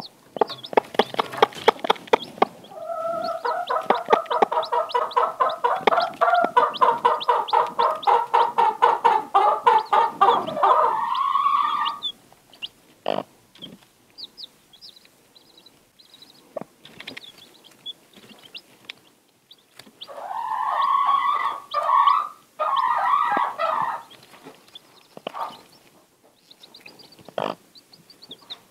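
Icelandic mother hen clucking to her newly hatched chicks in long runs of rapid clucks: one for about ten seconds, then a shorter one about twenty seconds in. Chicks give short high peeps in the pause between.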